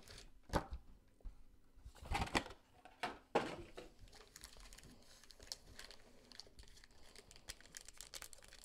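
Foil wrappers of Panini Playoff football card packs crinkling as they are handled, with a few sharp crackles in the first few seconds and faint rustling after.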